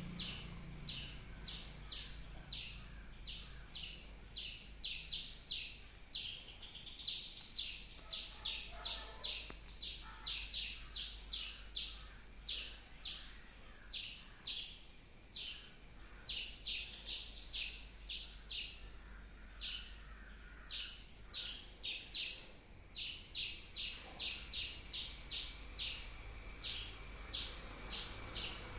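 A squirrel chirping: short, high, sharp calls repeated over and over at about one to two a second, in a long unbroken series.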